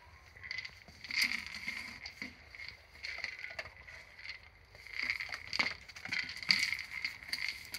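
A German Shepherd sniffing and nosing a food-filled red rubber Kong treat toy across brick paving, the toy knocking and scraping irregularly as it is pushed about.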